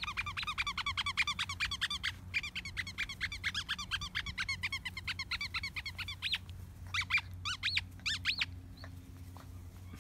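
Squeaky dog toy squeezed over and over, giving quick runs of short high squeaks, about eight a second. The squeaks break off briefly about two seconds in, stop just before six seconds, and come back as a few scattered squeaks.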